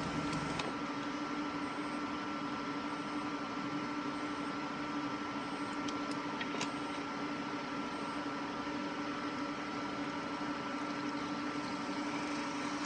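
Opened hard disk drive running with a steady electrical hum and buzz, with a few faint clicks.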